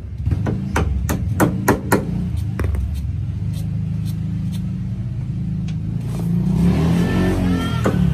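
A motor vehicle engine drones steadily, with a run of about a dozen sharp taps in the first three seconds as the new bushing is worked into the door hinge. Near the end a vehicle engine swells and sweeps in pitch, like a vehicle passing or revving.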